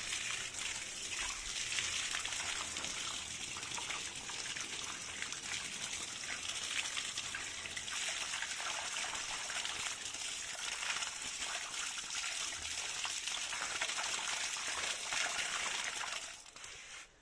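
Tap water gushing steadily onto a gutted tilapia and a tiled floor, splashing as hands rub the fish clean under the stream. The flow stops near the end.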